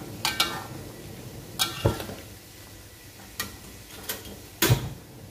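Metal spoon clinking and knocking against an aluminium wok while stirring fish in sauce, about six sharp strikes, with a heavier thud near the end.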